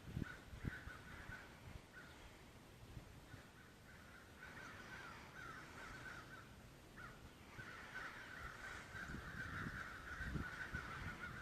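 A flock of crows cawing, many faint overlapping calls that come in patches at first and run continuously from about halfway through: the crows are agitated, going nuts over something. A few low knocks near the start and near the end.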